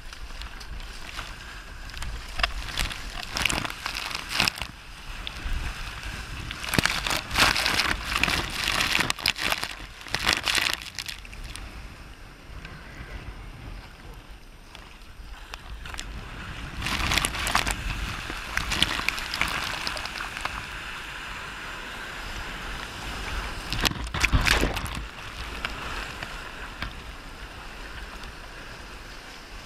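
Sea water rushing and splashing around a Romany Classic sea kayak as it is paddled and surfed through breaking waves, with paddle strokes in the water. The whitewater swells in surges, loudest about a third of the way in, again after about seventeen seconds, and briefly near twenty-five seconds, over a low steady wind rumble.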